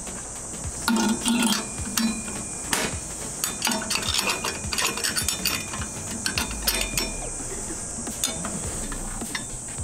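Metal clinks and knocks as a perforated stainless-steel screen is fitted by hand onto the rotor housing of an Okada Seiko speed mill. A steady high-pitched buzz of insects carries on behind.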